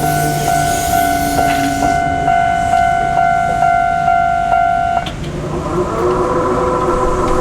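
Japanese railway level crossing alarm ringing its electronic warning bell at about two dings a second, while a train runs over the crossing and dies away about two seconds in. About five seconds in, the bell gives way to a lower-pitched alarm tone.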